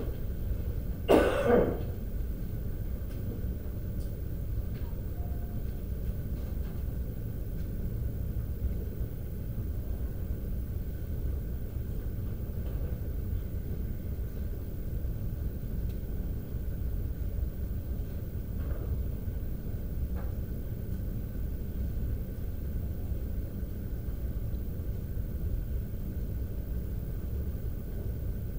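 A person coughs twice in quick succession about a second in, over a steady low rumble of room noise.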